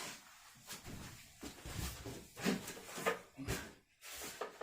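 Cardboard shipping box and its packing being handled and searched through: a string of short rustles and light knocks.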